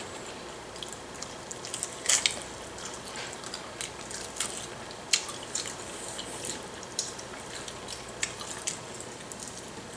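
Close-up eating sounds of people eating sauced chicken wings: wet chewing, lip smacks and small clicks scattered throughout, the loudest smack about two seconds in.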